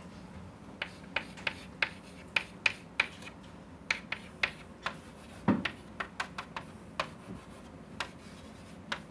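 Chalk tapping and scratching on a chalkboard as an equation is written out: a string of irregular sharp taps, about two a second, with one heavier knock a little past halfway.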